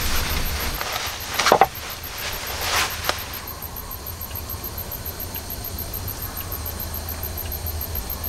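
Nylon sleeping bag rustling as a man shifts and settles in it, loudest about a second and a half in and again near three seconds. After that he lies still over a steady low rumble with a few faint ticks.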